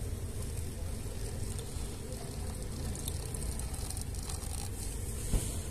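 Just-boiled water poured from a steel saucepan into an instant noodle cup, a steady pouring and splashing as the cup fills, with one short knock near the end.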